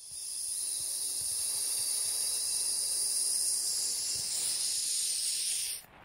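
A steady high-pitched hiss that cuts off suddenly near the end.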